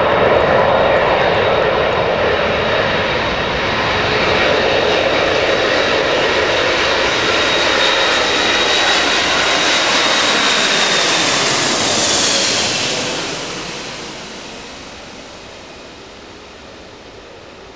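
Boeing 747 jet engines passing low overhead on landing approach: loud jet noise with a steady high fan whine. About twelve seconds in, the whine drops in pitch as the jet passes, and the noise then fades away over the next few seconds.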